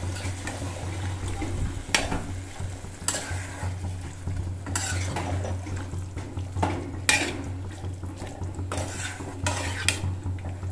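A metal spatula stirs and scrapes cabbage, potato and peas around a metal kadai, knocking against the pan every second or so, over the sizzle of the simmering curry and a steady low hum.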